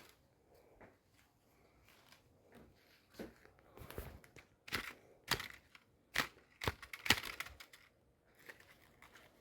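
Aluminium foil crinkling and crumpling in irregular crackles as it is handled, busiest in the middle.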